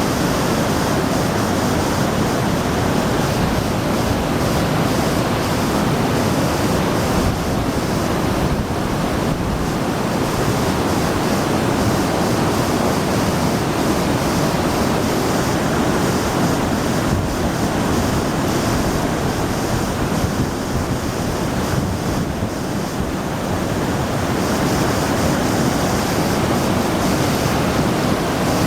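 Floodwater of a swollen river rushing steadily, a loud, unbroken roar of water.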